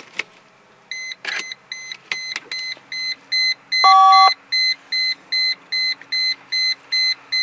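Mercedes-Benz W210 E320 dashboard warning beeper sounding a short high beep about three times a second as the ignition is switched on, with one louder, lower two-note chime from the instrument cluster about four seconds in. A few clicks come early on, and a faint steady hum sets in partway through.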